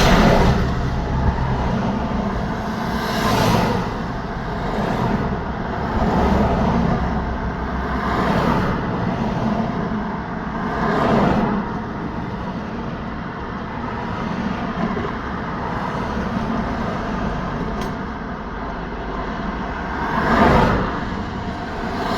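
Road traffic: vehicles passing one after another, each pass a rush of tyres and engine that swells and fades, over a steady low engine hum. The passes come every few seconds, with a calmer stretch in the middle.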